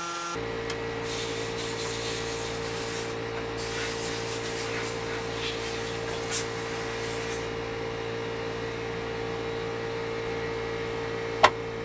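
Metal rubbing and scraping as the lift parts of a Tonka toy forklift are handled and fitted into its steel mast, over a steady hum. One sharp click comes near the end.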